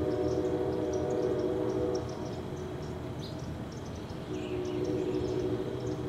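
Outdoor ambience: a steady droning hum that weakens about two seconds in and comes back near the end, with scattered short, high chirps over it.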